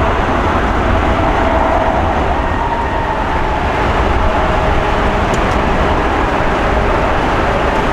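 The four GEnx turbofans of a heavy Boeing 747-8F freighter at takeoff thrust: a loud, steady jet noise with a deep low rumble and a faint hum that drifts slightly in pitch.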